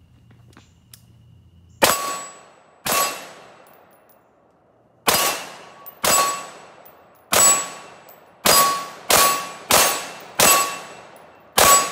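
DPMS Oracle AR-15 firing ten semi-automatic shots of 55-grain PMC brass-cased ammunition, irregularly spaced and coming quicker toward the end, each shot with a short ringing tail. The rifle cycles round after round, which the owner credits to tightening its loose gas key.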